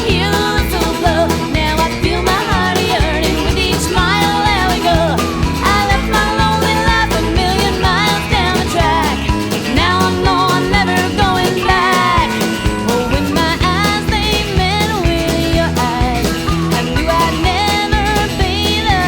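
Country-rock band music with a steady drum beat, guitars and a wavering melody line over the top.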